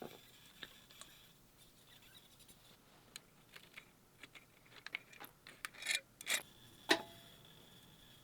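Scattered light clicks and taps of small hard objects being handled, coming thicker after about three seconds, with a few sharper knocks around six and seven seconds in.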